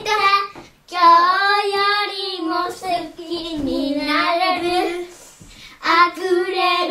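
A child singing a Japanese song in a high voice with no accompaniment, in long held notes, with short breaks just before one second in and around five seconds in.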